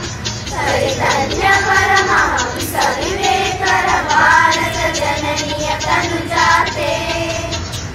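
A group of schoolchildren singing a Kannada song together as a choir.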